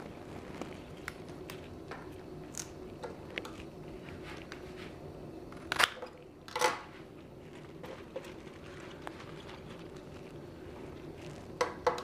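Cut flowers and foliage being handled while arranging: small rustles and crackles, with two louder crunchy rustles a little past halfway and another pair near the end.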